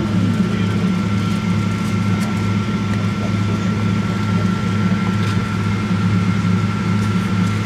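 Steady cabin drone of a Boeing 777-236ER with both engines running at idle: an even low hum with a thin, steady high whine above it.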